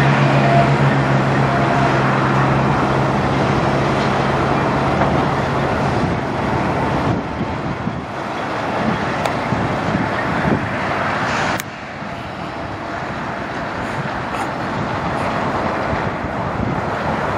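Peterbilt semi truck's diesel engine running as the rig moves slowly past, with a steady low hum that drops away about seven seconds in. A sharp click comes about eleven and a half seconds in, and the sound is quieter after it.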